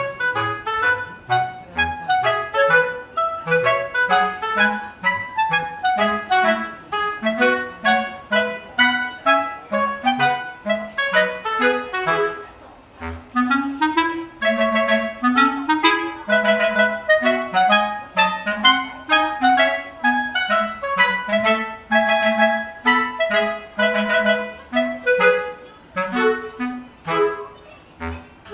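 Background music: a bright, bouncy tune on clarinet-like woodwinds over a plucked bass line, in a quick even rhythm.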